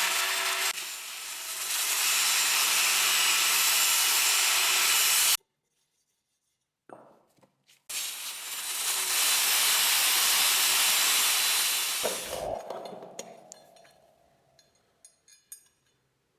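Electric abrasive power tool running with a steady rubbing sound as it works the rusty pliers. It stops abruptly about five seconds in, runs again for about four seconds after a pause, then winds down slowly. A few light metal clinks follow near the end.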